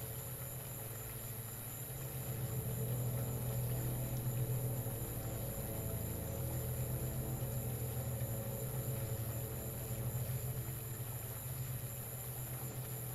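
Steady low hum and hiss of several electric desk fans running, swelling slightly louder for several seconds in the middle.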